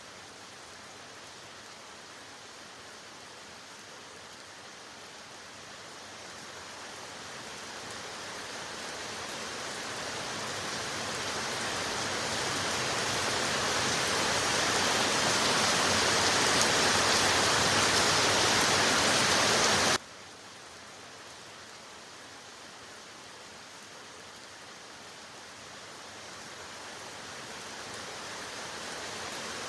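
Steady rain hiss that grows gradually heavier and louder over about fifteen seconds, cuts suddenly back to a light rain about two-thirds of the way in, then begins to build again.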